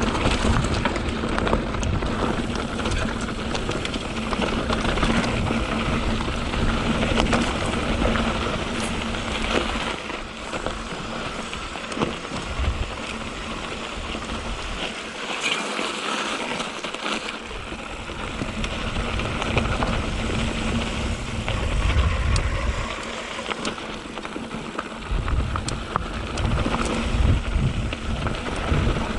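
Mountain bike (a 2021 Canyon Spectral 7) ridden over a rough dirt trail: tyres crunching on dirt and rock, the bike rattling with small sharp clicks, and wind buffeting the microphone in gusts.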